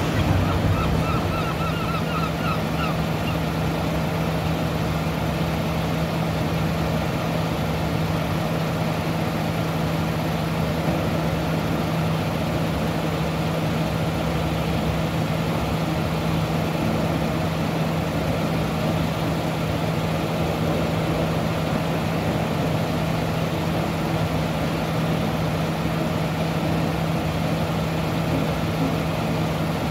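Diesel engine idling steadily, a constant low drone with no change in speed.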